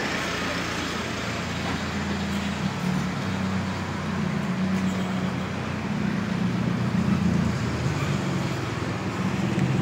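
Road traffic: car engines running with a steady low hum as cars drive slowly past close by.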